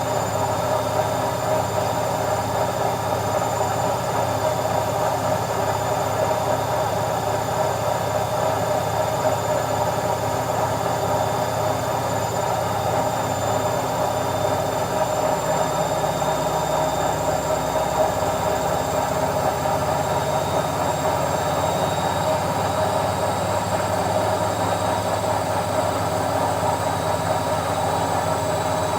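Washing machine running with a steady rumble and hum, and a faint high motor whine above it. The low rumble shifts a little about two-thirds of the way through.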